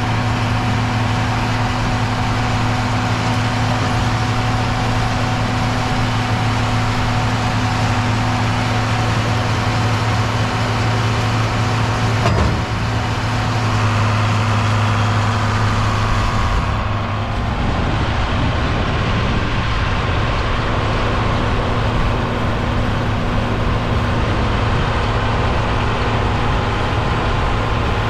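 John Deere 4230 tractor's six-cylinder diesel engine running steadily under working load. The sound changes character about two-thirds of the way through.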